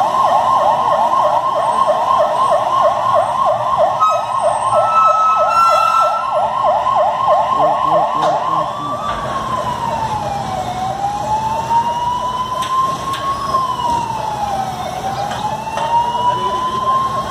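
Fire engine siren sounding in a fast yelp, switching about nine seconds in to a slow wail that falls and rises over a few seconds each way.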